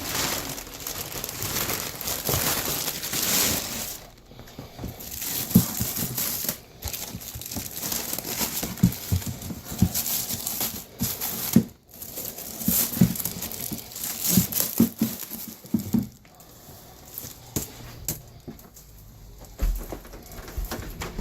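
Crinkling and rustling with scattered thumps and knocks: debris from wrecked shoes being gathered up and dumped into a garbage can.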